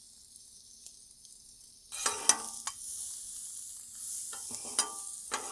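Sliced onions and butter sizzling faintly on a steel Blackstone flat-top griddle. From about two seconds in, two metal spatulas scrape and clack several times against the griddle as the onions are stirred.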